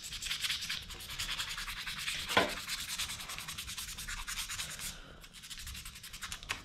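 Quick back-and-forth strokes of 1200-grit wet-and-dry sandpaper rubbed by hand along a hardened steel kiridashi blade, sanding out surface marks. The strokes pause briefly near the end, and one short falling squeak comes about two and a half seconds in.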